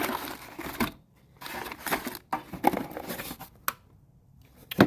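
Loose nails rattling and scraping as a hand stirs through them in a heavy, thick-walled steel toolbox, in irregular bursts with a few sharp clicks and a louder metallic knock near the end.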